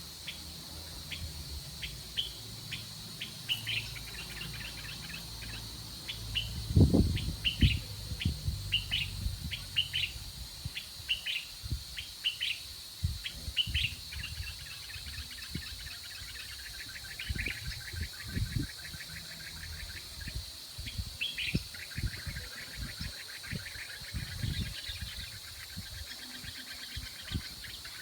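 Small birds chirping in short, repeated calls and fast trills. Scattered low knocks and thuds come in about a quarter of the way through, the loudest one there.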